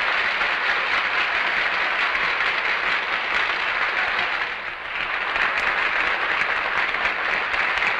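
A large audience clapping in steady applause, easing briefly a little past the middle.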